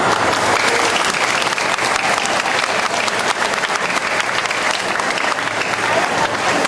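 Audience applauding steadily, many hands clapping, at the end of a choir's song.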